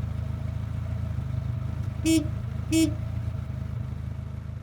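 Car engine running with a steady low hum, and two short toots of the car horn a little over two seconds in, less than a second apart.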